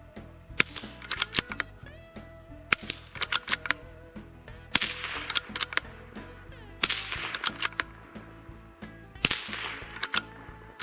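Suppressed .22 LR pistol shots from a Walther PPQ 22 fitted with a Mack Brothers Vapor suppressor: sharp reports coming in several quick groups.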